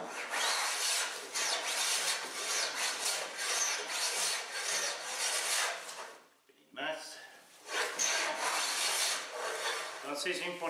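Large hand plane shaving a long wooden board: a long hissing cut of about six seconds, a short pause, then a brief stroke and another long one. It is the even sound of a plane that is well adjusted and cutting cleanly.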